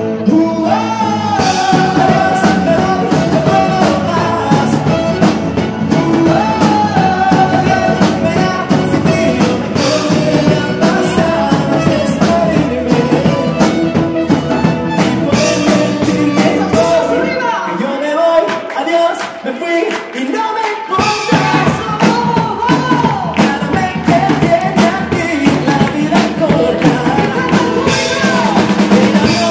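Live band playing a song with amplified male vocals over keyboards and a drum kit. About seventeen seconds in, the bass drops out for a few seconds, then the full band comes back in.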